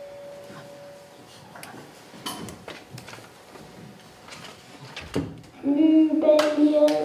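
A held ringing tone fades out within the first second, then a few soft knocks and clicks. Near the end a woman's high voice starts singing loudly in long held notes.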